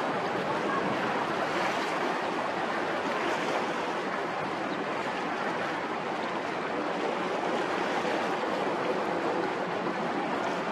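Steady, even rushing noise with no distinct tones or events.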